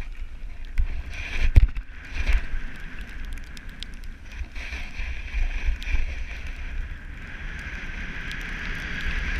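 Small quadcopter drone's propellers humming steadily, with wind buffeting the microphone and a single sharp knock about one and a half seconds in.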